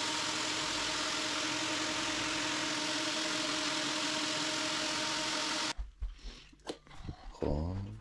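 Large electric floor sander running steadily on a parquet floor: an even motor hum with a hiss over it. It cuts off abruptly about five and a half seconds in, leaving only a few faint knocks.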